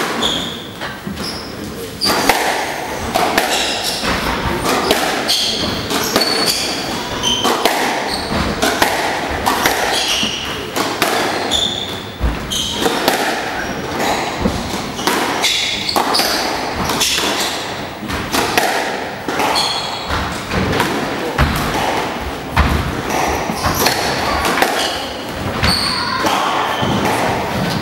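A squash rally: the ball hit by racquets and smacking off the court walls again and again, with short high squeaks of players' shoes on the wooden floor.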